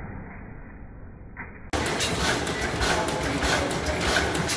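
Large antique horizontal side-shaft gas engine with twin flywheels running, with a steady mechanical clatter and a regular clicking beat. About a second and a half in, the sound turns abruptly much louder and clearer.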